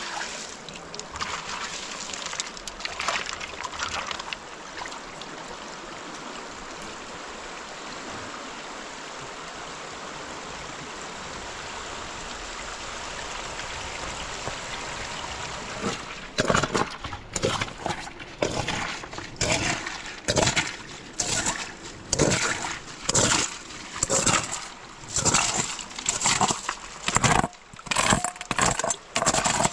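A few splashes in a small muddy pool, then the steady rush of a flowing river, then from about halfway through a run of separate splashes about once a second as water is scooped out of a rock pool with a metal bowl and thrown onto the stones.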